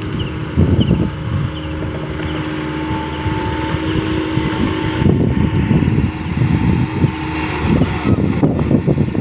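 Tata Hitachi Zaxis 210 hydraulic excavator working: its diesel engine runs steadily under load with a constant hydraulic whine as it dumps a bucket of soil and swings with the boom raised.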